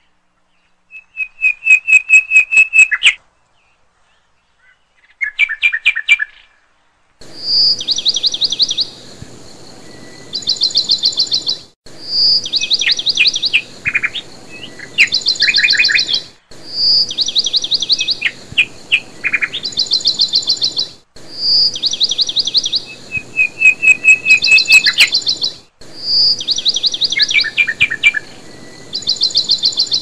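Small songbird singing in quick trilled chirps. From about seven seconds in, the same phrase of chirps repeats every four to five seconds, with a brief cut between repeats, over a faint steady hiss.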